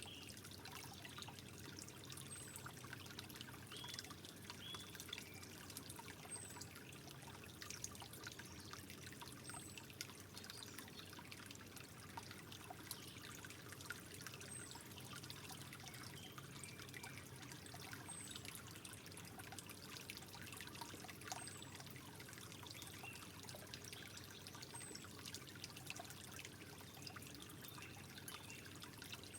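Water trickling gently and steadily, with many small droplet ticks. A faint, short, high chirp recurs every few seconds.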